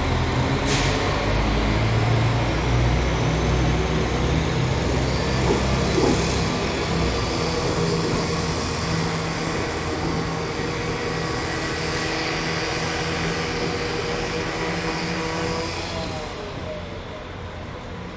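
West Midlands Railway Class 196 diesel multiple unit running, a steady deep engine drone that is strongest in the first few seconds and fades near the end.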